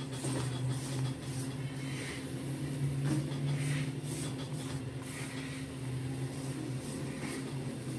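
Flat metal spatula scraping and turning thick semolina halwa in a wok as it is roasted, in repeated strokes about once a second, over a steady low hum.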